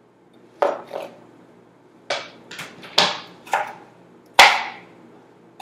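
Kitchen knife chopping bell pepper on a cutting board: about seven sharp, unevenly spaced chops, the loudest near the end.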